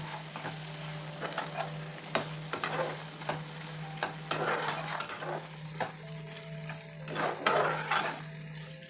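A spatula stirring and scraping thick chicken pickle masala around a non-stick kadai as it fries over the flame, in irregular scrapes and soft knocks. A steady low hum runs underneath.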